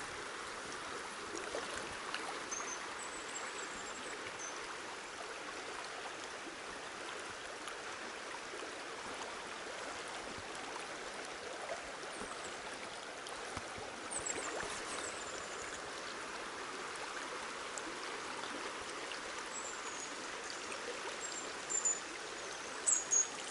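River current flowing, a steady watery rush. Faint high chirps come and go, and a few sharp clicks sound near the end.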